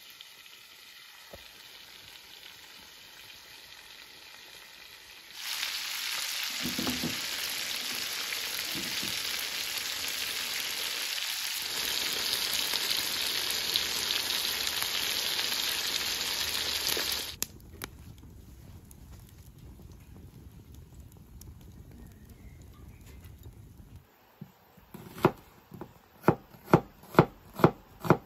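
Chicken pieces frying in hot oil in a metal cauldron, a loud steady sizzle that starts about five seconds in and cuts off suddenly about twelve seconds later. Near the end a knife chops red onion on a wooden board, about two sharp chops a second.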